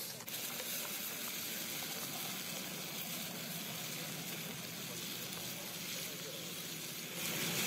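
Fire burning in airliner wreckage, a steady hissing crackle of open flames, growing louder near the end.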